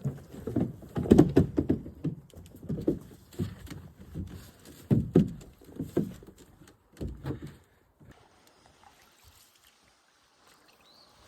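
Canoe being paddled: irregular knocks and splashes of paddle strokes against the canoe and water for about seven seconds, then it goes quiet.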